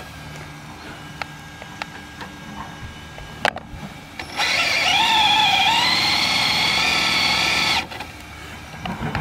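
Team Associated DR10M RC drag car's Fantom ICON 3.5 brushless motor whining at high revs for about three seconds, from about four seconds in, as the rear tires are spun to heat them before a pass; the pitch dips briefly mid-way and the whine cuts off suddenly. Before it, a few light clicks and one sharp click.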